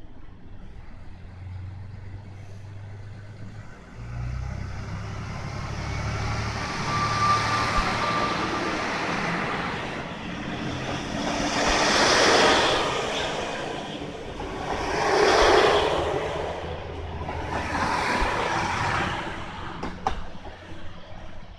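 KiHa 183 series diesel express train idling, then its engines open up about four seconds in as it pulls away. Its cars pass close by in three loud swells of engine and wheel noise, a few seconds apart, before it fades.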